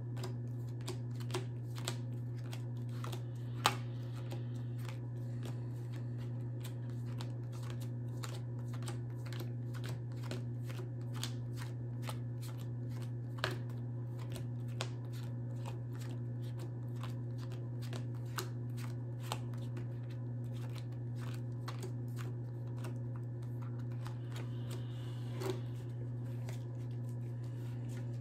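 A sleeved Pokémon trading-card deck being shuffled by hand: a steady run of soft card clicks and flicks, with a few louder snaps, over a constant low hum.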